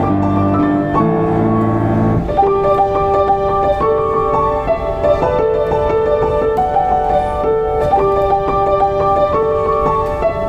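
Diapason grand piano played: deep bass chords give way about two seconds in to a repeating mid-register melody with ringing notes.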